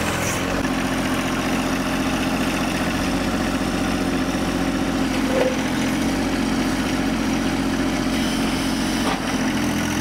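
John Deere 1025R compact tractor's three-cylinder diesel engine running steadily while the backhoe is worked.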